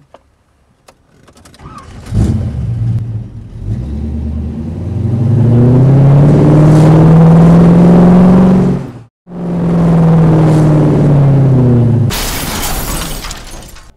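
Car engine starting up about two seconds in and accelerating hard, its pitch climbing steadily, then falling away as it slows after a brief cut-out. A harsh burst of noise near the end.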